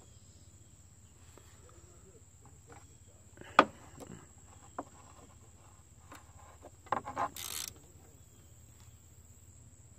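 A quarter-inch ratchet with a 10 mm socket being worked on the Camry's air-box hold-down bolts: scattered clicks and knocks, the loudest a sharp knock about three and a half seconds in, and a short ratcheting rasp around seven seconds. A steady high-pitched tone sounds underneath.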